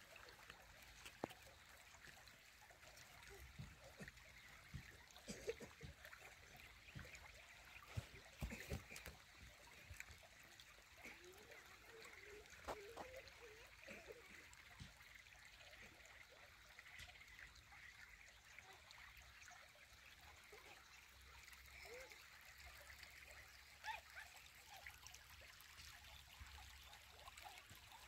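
Faint trickle of water running in a narrow earth-banked ditch, with occasional light clicks, mostly in the first half.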